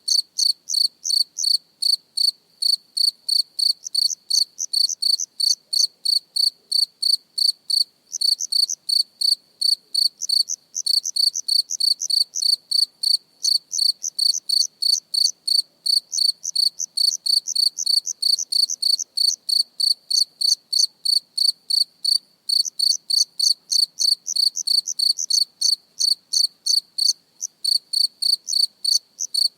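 A cricket chirping close up: a steady train of short, high-pitched chirps, about three a second, broken by a few brief pauses.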